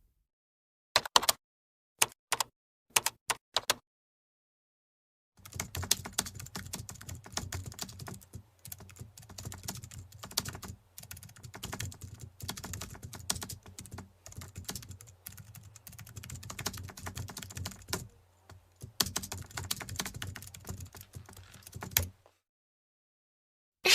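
Typing on a computer keyboard: a few separate key clicks at first, then fast, steady typing from about five seconds in, with a short pause near three-quarters of the way through, stopping shortly before the end.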